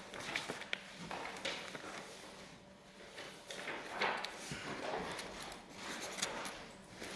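Scattered light knocks, clicks and rustling at irregular intervals, the loudest knock about four seconds in.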